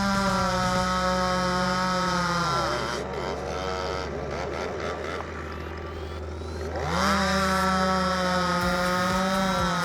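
Two-stroke chainsaw running at high revs, dropping back to idle about two and a half seconds in, then revving up again about seven seconds in and held at high revs.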